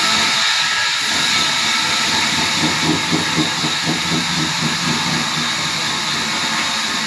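Sawmill machinery running with a loud, steady hissing noise.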